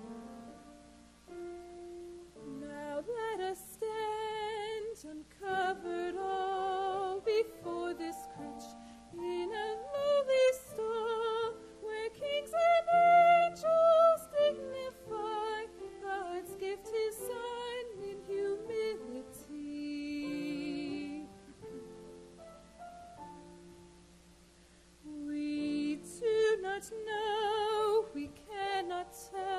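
A woman singing a slow, solo melody with vibrato, rising to long-held high notes about halfway through, over a gentle piano accompaniment of sustained chords.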